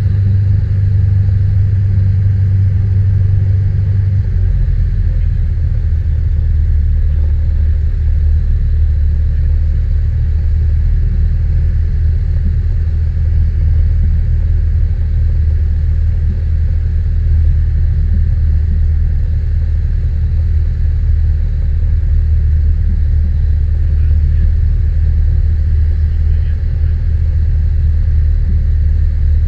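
Piper Warrior's four-cylinder piston engine and propeller droning steadily, heard inside the cockpit. The drone steps down to a lower pitch about four seconds in.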